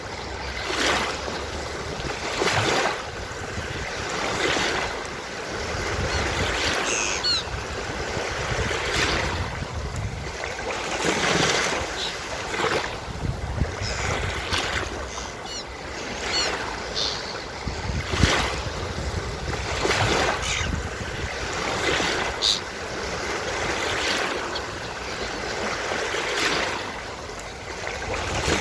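Ocean surf breaking and washing on a beach in repeated swells every few seconds, with seagulls calling briefly several times over it.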